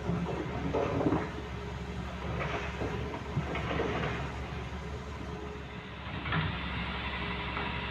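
Heavy diesel construction machinery (an excavator loading rock into dump trucks) running steadily, with irregular clanks and scrapes of rock and metal a few times.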